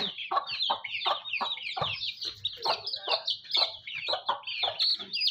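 Chickens clucking: a steady run of short, separate calls, about three a second.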